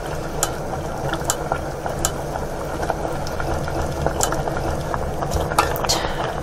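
Spicy mussel soup bubbling at a steady boil in a stainless steel pot while a wooden spoon skims the foam and stirs. There are a few light clicks of the spoon against the pot.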